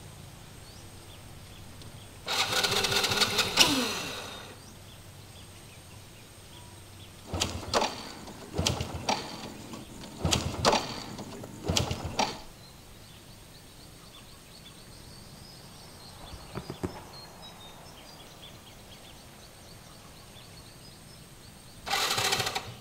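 Step-through motorbike being kick-started again and again without catching: one longer sputtering burst, then a run of short cranks about a second apart, and another try near the end. The fault is a loose spark plug cap.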